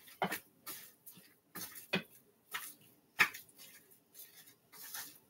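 Gloved hands working chicken breast in cornstarch: a series of short, irregular rustling and crinkling bursts from the plastic glove and the powder, about one or two a second.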